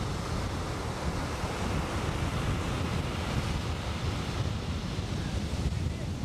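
Ocean surf breaking and washing on a beach, a steady roar, with strong wind buffeting the microphone.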